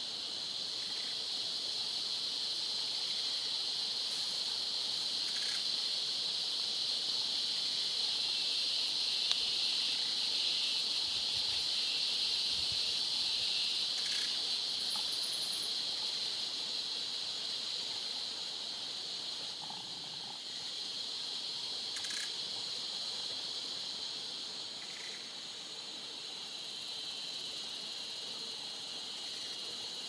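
Rainforest insect chorus: a steady high, shrill drone of many insects, with a few brief higher chirps and clicks over it.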